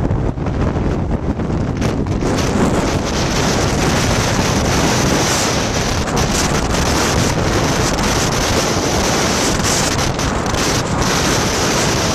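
Fierce wind gusting into the 60s mph, buffeting the microphone with a loud, continuous rush and rumble that grows stronger about two seconds in; the gusts are strong enough to scour snow off the ridge.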